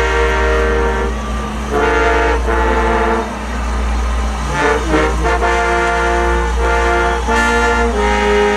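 Marching band brass playing sustained chords, each held for a second or two with short breaks between, over a steady low rumble.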